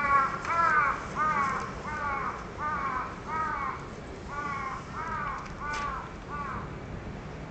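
A crow cawing: a run of about ten harsh caws, roughly two a second, with a short break near the middle.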